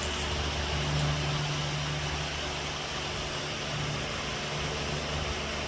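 A steady low machine hum with an even hiss underneath.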